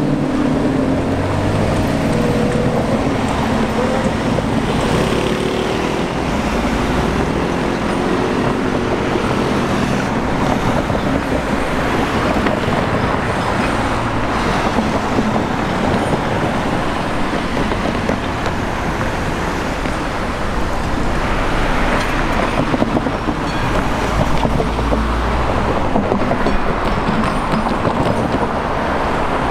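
Steady, loud vehicle traffic noise, with a wavering motor hum that fades away over the first several seconds and a deep rumble swelling about three-quarters of the way through.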